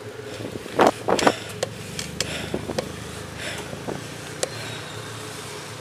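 Riding noise of a folding bicycle picked up by a handlebar camera: a steady hum of road and traffic, with a few loud knocks and rattles about a second in and scattered lighter clicks after.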